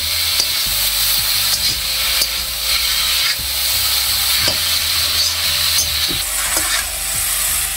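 Vegetable chow mein noodles sizzling as they are stir-fried and tossed in a steel kadai, a steady frying hiss. Occasional scrapes and clinks of the steel spatula against the pan break through it.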